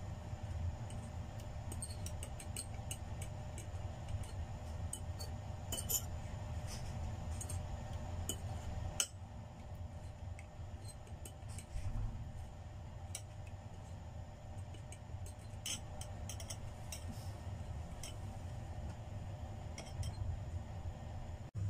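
A metal fork and spoon clinking and scraping against a ceramic bowl while stirring a chocolate mixture, in many light, irregular clinks.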